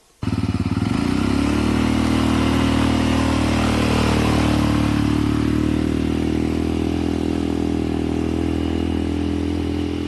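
A motorcycle engine running steadily at an even pitch. It starts abruptly about a quarter second in and rises a little in pitch during the first second.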